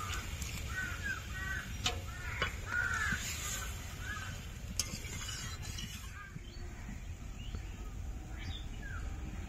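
Crows cawing over and over: a quick run of harsh calls for about the first six seconds, then a couple of fainter caws near the end. A few sharp clicks are heard among the calls.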